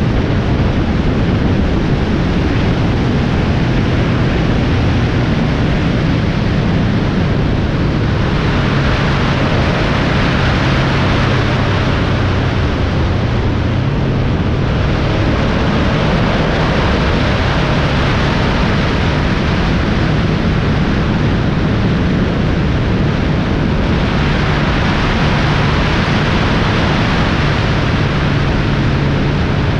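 Vehicle driving at steady highway speed: a constant engine drone under loud road and wind noise. A brighter hiss swells up twice, for about six seconds each time.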